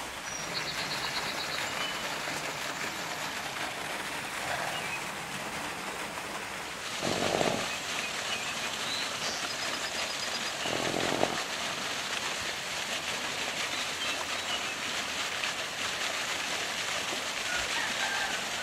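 A small stream running over stones, a steady rush that grows louder about seven seconds in, with short rapid bird trills near the start and again about nine seconds in. Two brief louder bursts come at about seven and eleven seconds.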